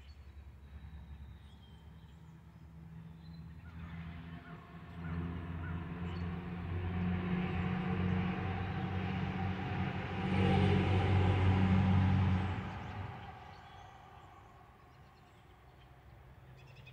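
A motor vehicle driving past: its engine hum and road noise grow louder over several seconds, peak about two-thirds of the way through, then fade away quickly.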